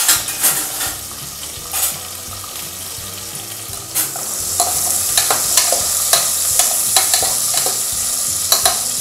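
Shallots and cumin seeds frying in sesame oil in an aluminium pressure cooker: a steady sizzle that grows louder about four seconds in. Over the second half they are stirred, with short scraping clicks against the pot several times a second.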